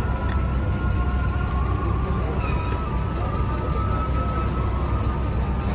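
Steady low hum with a faint background murmur and one brief click just after the start.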